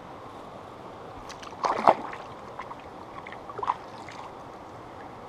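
Water splashing and sloshing as a chub is released by hand into a river pool. There is a short loud splash about two seconds in and a smaller one nearly two seconds later, over a steady hiss of flowing river water.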